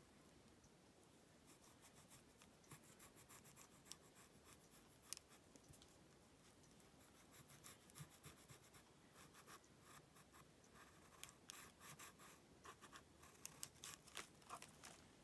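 Faint scratching of a pencil drawing short strokes on paper, starting about a second and a half in and coming more often toward the end.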